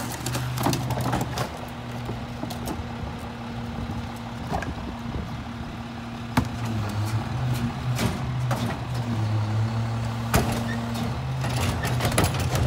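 Rear-loader garbage truck's diesel engine idling steadily, its note stepping up a little about seven seconds in. Over it, scattered knocks and clatter of trash bags and a plastic wheeled cart being emptied into the rear hopper.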